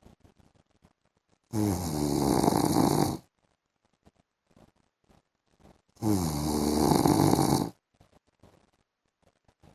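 A sleeping man snoring: two long snores about four and a half seconds apart, with quiet breathing between them.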